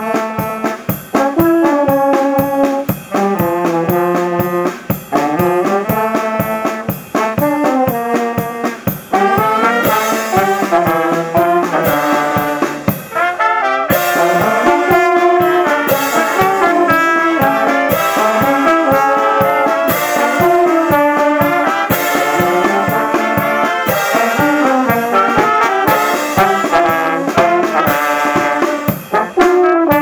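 Live brass band playing a tune: trombone, saxophones and low brass over a steady drum beat. The band grows fuller and brighter about ten seconds in, after a brief break just before the middle.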